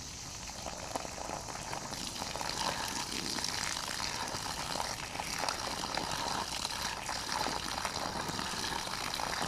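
Water running steadily into a container, filling it, with some splashing; it gets louder about two seconds in.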